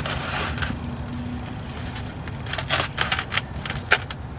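Scraping and rustling, then a quick run of clicks and knocks, as a full oil drain pan is pushed along the ground under the car.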